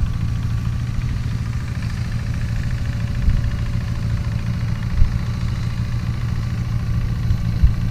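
Farm engine running steadily with a low hum, and a few brief knocks over it.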